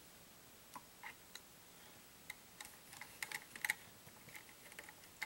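Faint, scattered light ticks and clicks of a hex driver turning a small screw into the plastic slipper clutch cover of a Traxxas Rustler 4x4, with the truck's plastic parts knocking as it is handled. The clicks come a few at a time at first and bunch together about three seconds in.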